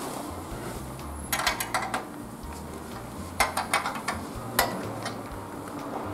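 Flat stamped-steel bicycle spanner clinking on the saddle's seat-post clamp nut as it is turned to tighten the saddle: a quick run of metallic clicks a little over a second in, another about three and a half seconds in, then a single click.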